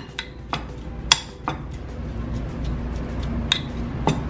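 Metal spoon clinking and scraping against a ceramic dish while mashing and mixing a tuna filling: about half a dozen separate clinks, irregularly spaced.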